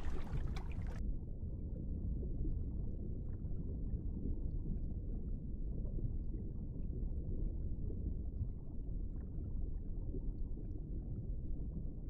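Underwater ambience: a steady low rumble of water. A brighter hiss with crackles cuts off suddenly about a second in.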